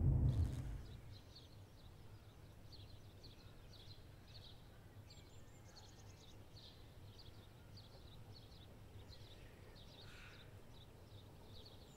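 A short low thud at the very start, then faint birdsong: a thin, high chirp repeating about twice a second over a low steady hum, as morning ambience.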